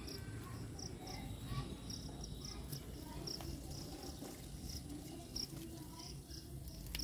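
A cricket chirping outdoors in short, high-pitched chirps, about one or two a second, over a low background rumble.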